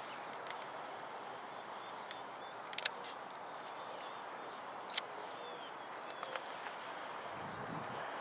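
Outdoor ambience: a steady background hiss with small birds chirping in short, high runs of three or four notes, about two seconds in and again near the end, and a couple of sharp clicks.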